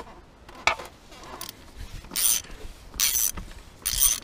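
Ratchet wrench with a 27 mm socket undoing an oil filter housing cap: two sharp clicks in the first second, then a short burst of ratcheting about once a second as the handle is swung back between turns.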